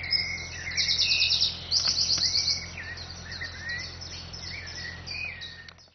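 Songbirds singing and chirping, with two fast, high trills about one and two seconds in.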